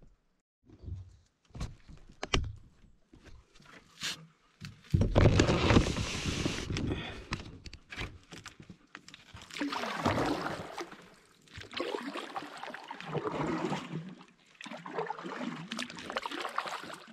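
Canoe paddle strokes in calm water: a few faint drips and light knocks, then from about five seconds in a swell of swishing, sloshing water with each pull, coming every two seconds or so.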